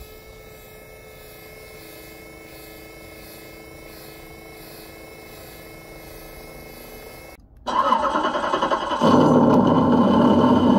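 A steady hum of several fixed tones, then a sudden cut, then an engine cranking and starting; about a second and a half later it runs louder and fuller.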